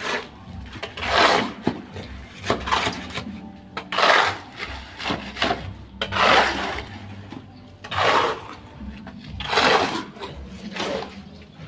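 Shovel and trowel scraping through a sand, gravel and cement mix on a concrete slab as it is mixed by hand, a rasping stroke every second or two.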